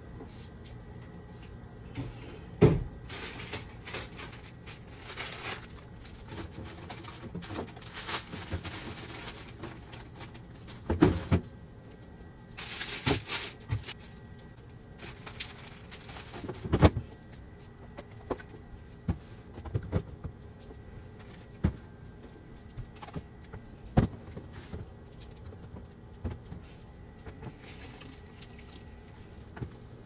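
Plastic refrigerator crisper drawers and shelves being handled: several sharp knocks and clunks a few seconds apart as parts are slid out and set back, between short rustling and scraping stretches.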